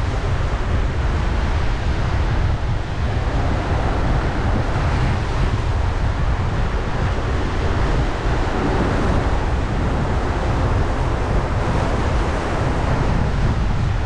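Wind buffeting the microphone over the rush of surf breaking on the rocky shore: a steady, loud wash of noise with a heavy low rumble.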